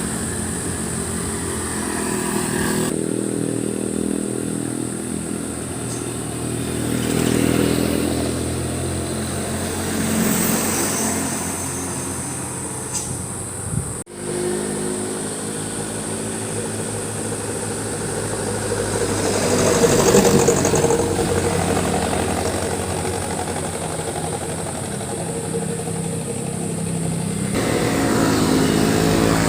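Motorcycles and cars passing on a road, engines revving and swelling as they go by, with loud aftermarket exhausts. A sudden break about halfway through, then more passing traffic.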